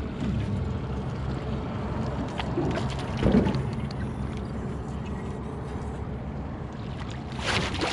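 Boat motor running with a steady low hum, with a thump about three seconds in. Near the end, water splashes as the landing net goes in around the hooked salmon.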